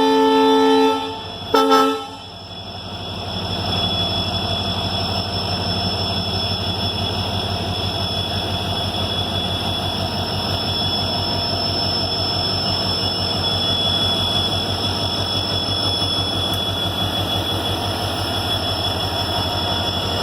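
Indian Railways WDG-class diesel freight locomotive sounding its multi-tone horn, one long blast and then a short one, followed by the steady throb of its diesel engine, which swells up over a couple of seconds and then runs on evenly.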